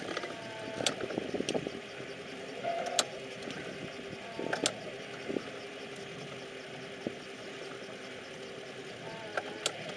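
Ski boat's inboard engine idling steadily, with a few sharp clicks scattered through.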